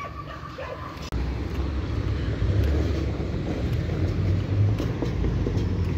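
A motor vehicle passing close by in street traffic: its engine and tyre rumble comes in suddenly about a second in and holds steady.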